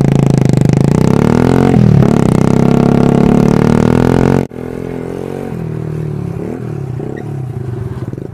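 Motorcycle engine running through an open Exos R5 exhaust pipe with a large outlet and no silencer, very loud, with a dip and rise in revs about two seconds in. About four and a half seconds in it cuts abruptly to a quieter, steadier stretch of the engine running.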